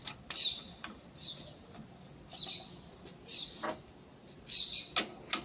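Manual coil-spring compressor being worked on a front suspension strut: sharp metal clicks, with a short high squeak that falls in pitch about once a second.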